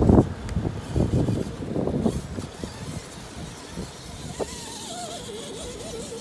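Gusty wind rumbling on the microphone for the first two seconds, then, from about four seconds in, the thin whine of an RC rock crawler's brushed electric motor as it creeps over rock, its pitch wavering up and down with the throttle.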